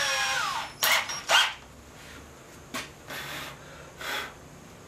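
Cordless drill boring a 3/8-inch hole in wood. The motor whine falls in pitch and stops when the trigger is released about half a second in. Two short, loud blips of the drill follow about a second in, then faint handling knocks.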